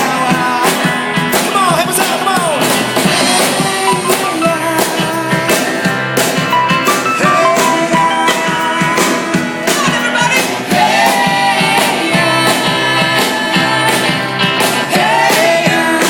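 Upbeat rock song: a singing voice over a full band with a steady drum beat.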